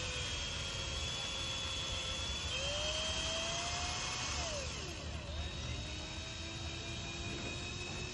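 Power drill running continuously as it bores into a test material. Its motor whine rises and falls in pitch as the load on the bit changes.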